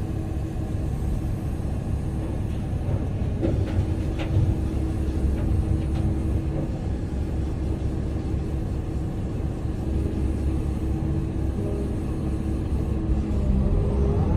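Excavator's diesel engine and hydraulics running under load, heard from inside the cab: a steady low rumble with a steady hum, as the boom swings a bucket of dirt over a dump truck and dumps it. A few faint ticks come a few seconds in.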